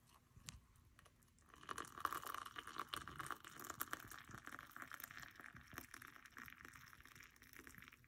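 Water pouring in a stream from a stainless steel Cuisinart electric kettle into a ceramic mug of steeping tea, splashing steadily. It starts about a second and a half in and runs on until it stops near the end.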